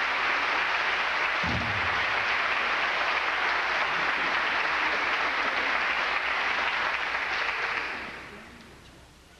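A large audience applauding, a steady dense clapping that fades away about eight seconds in, with a brief low thump about a second and a half in.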